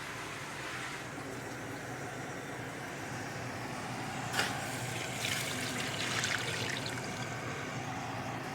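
Water being poured into a pot of braising oxtail, with a sharp clink about four seconds in and splashing for a couple of seconds after.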